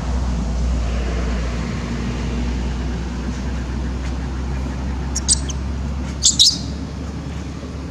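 Baby macaque giving short high-pitched squeaks, once about five seconds in and twice more a second later, over a steady low rumble.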